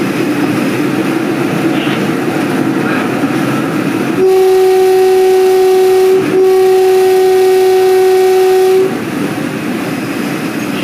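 Train running along the rails, then its horn sounds about four seconds in: two long blasts of one steady note with a brief break between them, louder than the running noise.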